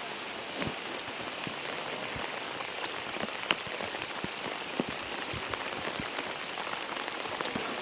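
Steady rain falling, with individual heavier drops ticking here and there through the hiss.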